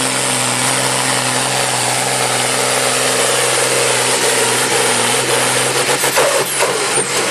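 Diesel engine of a Ford pulling tractor running hard at steady revs, under full load as it drags the weight-transfer sled.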